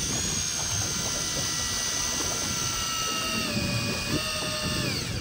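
Electric fishing reel's motor whining steadily as it winds in line from deep water. Its pitch steps down a little about three seconds in, again about a second later, and falls away near the end.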